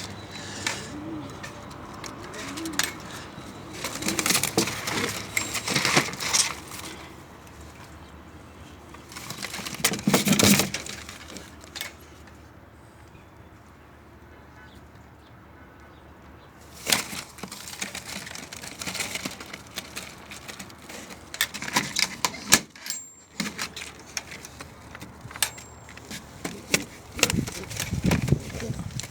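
Domestic pigeons in a loft cooing, with scattered bursts of wing flapping.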